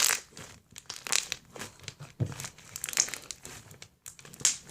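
Homemade slime with beads mixed in, being squeezed and worked by hand, giving irregular crinkly, crackling bursts.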